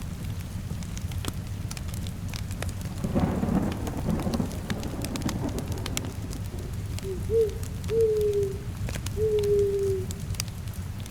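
Steady rain with a crackling log fire and a roll of thunder about three seconds in. From about seven seconds, three or four short, low, whistle-like tones, each falling slightly in pitch, are the loudest sounds.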